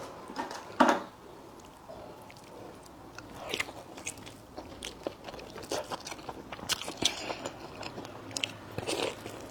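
Close-miked eating: a person biting and chewing food with many short, irregular crunches and wet clicks, which grow busier towards the end.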